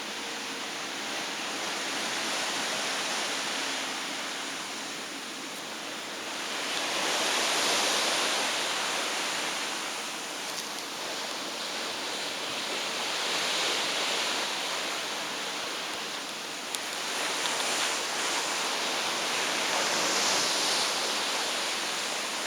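Sea water rushing and churning in a large cruise ship's wake, swelling and easing in slow surges every several seconds.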